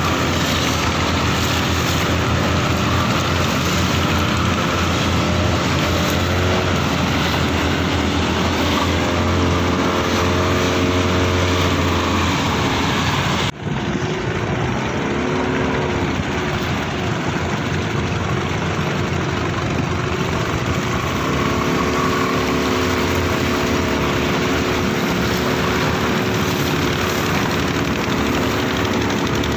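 Boat engine running steadily, heard from on board the boat. The sound drops out for an instant about halfway through.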